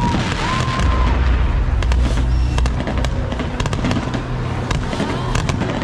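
Aerial fireworks display: shells bursting with dense crackling and deep booms, and a short whistle about half a second in, over music played for the show.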